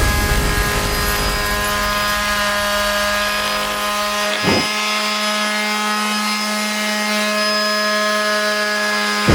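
TackLife PMS02B electric mouse detail sander running with 80-grit paper, sanding paint off wood. The motor's steady whine runs throughout; the rough scrubbing of the pad on the surface is heavy for the first four seconds, returns briefly about a second later, then drops away until the very end.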